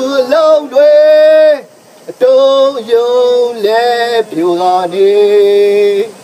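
A man's voice chanting protest slogans, a string of loud, held calls of about a second each, with a brief pause about two seconds in.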